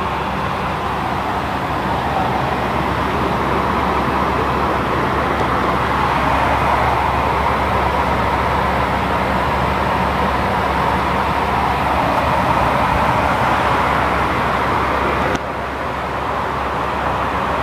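Steady drone of a cargo plane's engines and rushing air, heard from inside the aircraft in flight. It grows slightly louder about six seconds in and drops abruptly a little before the end.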